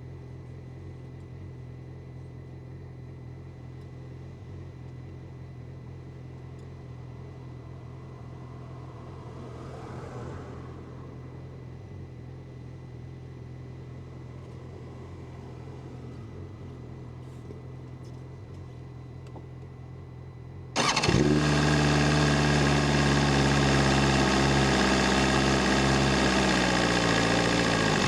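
A low steady hum, then about 21 seconds in a BMW S1000RR's inline-four engine starts abruptly and runs at a fast idle, its pitch easing down slowly as it settles.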